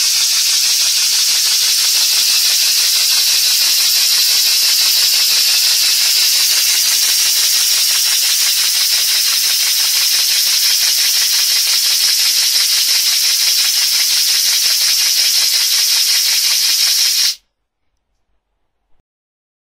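Small brass single-cylinder model mill engine running fast on compressed air: its exhaust gives a steady high hiss of rapid puffs. The sound cuts off suddenly near the end.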